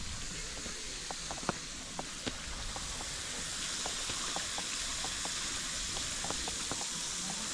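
Steady hiss of a small pond fountain's spray falling on the water, growing a little louder about three seconds in, with a few faint clicks.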